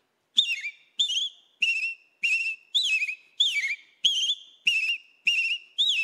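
A man whistling an imitation of the rufous-bellied thrush (sabiá-laranjeira) song: a steady run of about ten short, fluting phrases, nearly two a second, each swooping up and down in pitch.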